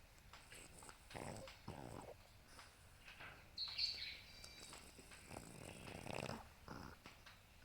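French bulldog snoring in its sleep: two short snores about a second in, then a longer snore and a short one in the second half. A brief high-pitched chirp sounds around the middle.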